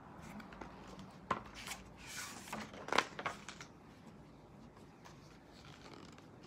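Pages of a hardcover picture book being handled and turned: a few soft paper rustles and taps between about one and three and a half seconds in, the sharpest a tap about three seconds in.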